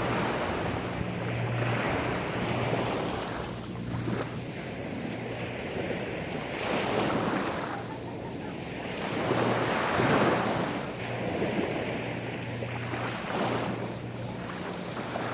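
Gentle sea waves washing up a sandy beach, each wash swelling and ebbing every two to three seconds.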